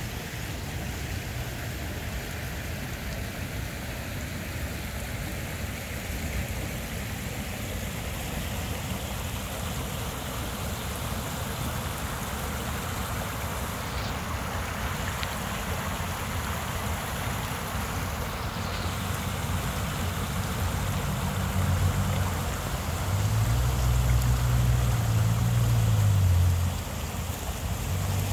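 Creek water running over rocks: a steady rushing wash. Over the second half a low rumble on the microphone comes and goes, loudest a few seconds before the end.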